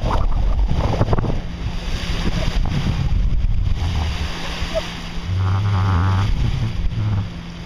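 Wind buffeting the microphone over the wash of sea water along a sailboat's hull, with a steady low hum underneath.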